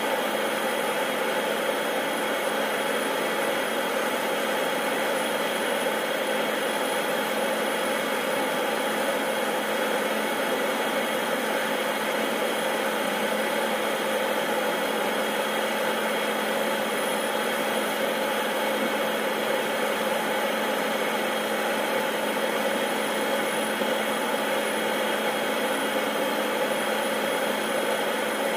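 Air Tractor agricultural plane's Pratt & Whitney PT6A turboprop idling on the ground with the propeller turning: a steady whine and hum that holds the same pitch throughout.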